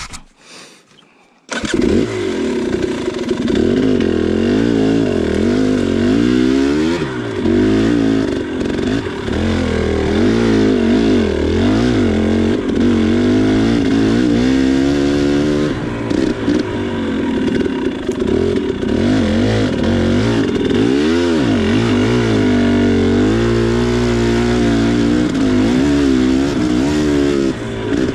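2019 KTM 300 XC's single-cylinder two-stroke engine, which cuts in suddenly about a second and a half in, then runs with the revs rising and falling over and over as the bike is ridden along a rough singletrack trail.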